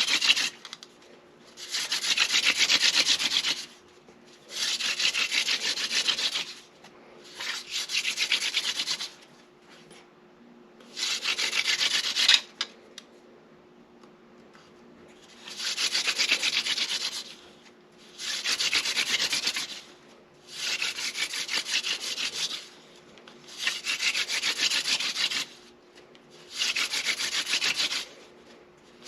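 Hand drill fire-by-friction: a seepwillow spindle spun between the palms, grinding into a sotol hearth board. It makes a dry, rasping grind in runs of about two seconds, each a downward pass of the hands, with short breaks as the hands go back to the top. There is a longer pause about halfway through.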